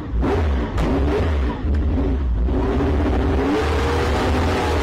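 A car engine revving hard, its pitch wavering up and down over a deep rumble, with a few brief breaks in the sound.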